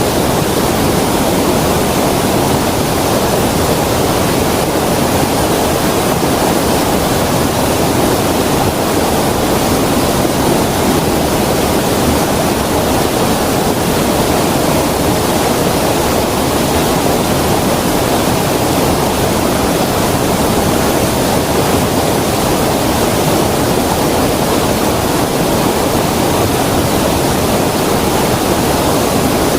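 Creek water flowing in a steady, even rush.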